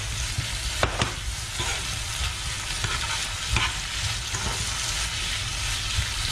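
Diced pork, potato, shrimp and onion sizzling in a hot frying pan as a metal spoon stirs a spoonful of black bean paste through them. The spoon clicks sharply against the pan about a second in and again at about three and a half seconds.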